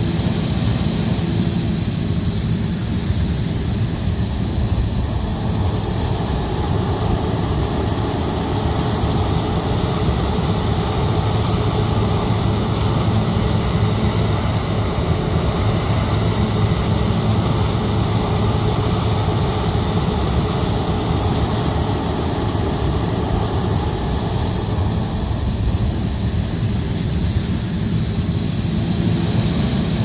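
Heavy harvest machinery running steadily under load: a combine harvester's engine and threshing gear with a tracked tractor alongside, a low engine hum under a steady high hiss.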